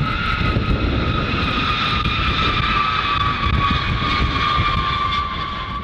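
B-52H Stratofortress jet engines running at full power as the bomber rolls past on its takeoff run. Its eight TF33 turbofans give a deep rumble under a high whine that slowly falls in pitch as it goes by.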